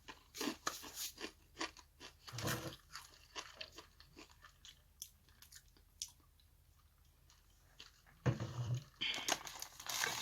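Close-up crunching and chewing of crispy fried food, a run of sharp crackly bites that thins out after a few seconds. A denser stretch of rustling, like paper or a wrapper being handled, starts near the end.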